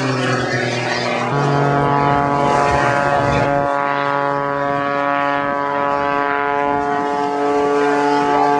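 Propeller airplane engine running at a steady, droning pitch during an air-show flyby. Its pitch finishes falling just after the start as the plane passes, then holds nearly level.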